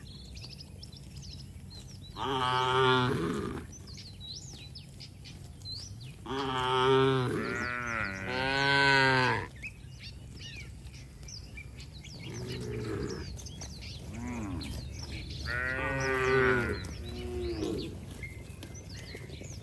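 Cattle mooing, a series of about six drawn-out calls, two of them back to back near the middle.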